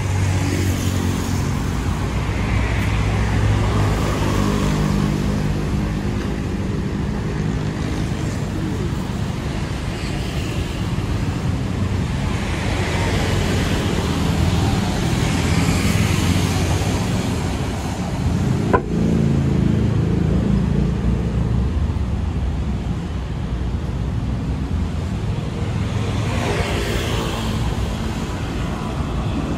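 City road traffic: engines running low and steady, with vehicles passing one after another. A single sharp click cuts through about two-thirds of the way in.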